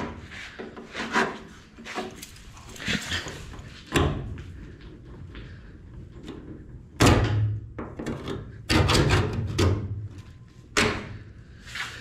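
Handling noise: a series of irregular knocks, thumps and rubbing, loudest about seven seconds in, where a thump trails into a short low rumble.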